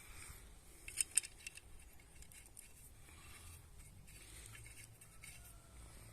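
Small metal parts being handled: two sharp clicks about a second in, then a few lighter clinks and faint scraping.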